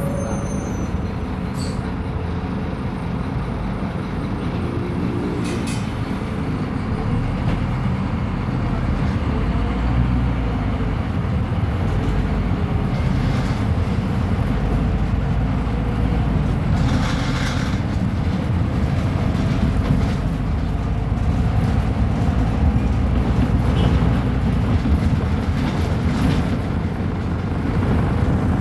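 The rear-mounted five-cylinder diesel engine of a Scania K310UB bus running, a steady deep sound that gets gradually louder, with a few brief rattles from the bus body.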